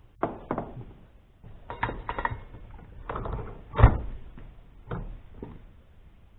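Irregular clicks, knocks and scrapes of sheet metal being handled and bent: the cut-open steel muffler of a 45cc chainsaw being folded back shut. There is one loud knock a little under four seconds in.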